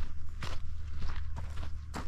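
Footsteps of a person walking on a track, about four steps over a steady low rumble.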